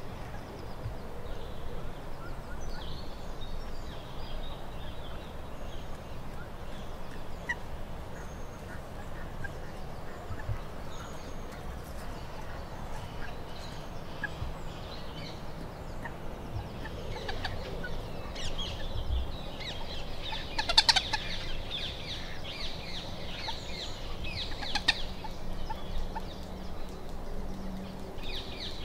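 Waterbirds calling on a lake: a scatter of short high calls and chirps, more frequent in the second half, with the loudest call about two-thirds of the way through, over a low steady rumble.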